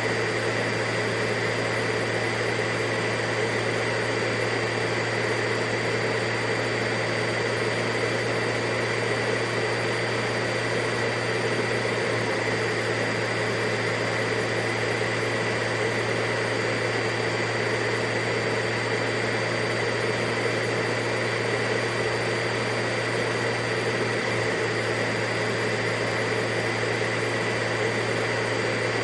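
Vacuum cleaner running steadily, a constant even motor whine with a low hum and a high tone over a rush of air, unchanging throughout.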